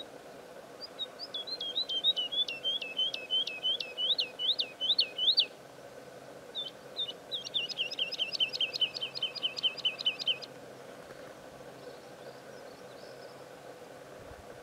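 Woodlark (Lullula arborea) singing two phrases, each a run of repeated liquid whistled notes. The first runs for about four seconds and grows louder. After a short pause comes a faster run of about five notes a second, which ends near the ten-second mark.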